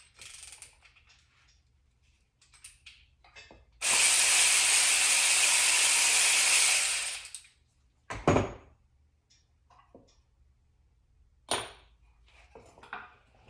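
Cordless ratchet running for about three and a half seconds, spinning a bolt out of the engine block, with a few sharp metal knocks afterwards.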